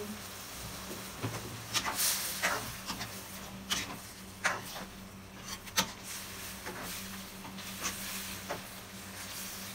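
Metal ladle knocking and scraping against a nonstick frying pan as stir-fried vegetables are turned, a string of sharp clicks and short scrapes from about a second in until near the end.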